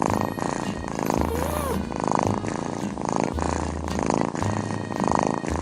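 A domestic cat purring close to the microphone, swelling and easing about once a second with each breath.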